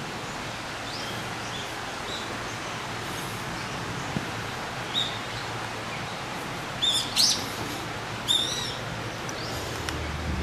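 Wild birds chirping in woodland: short, high calls at irregular intervals, a few louder ones close together a little past the middle, over a steady background hiss.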